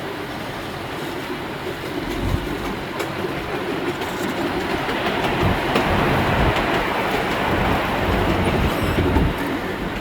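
Miniature park train running along its track, heard from the front car, with wheels clattering over the rail joints. The rumble grows about two seconds in and is loudest around the middle, with a few heavier low thuds.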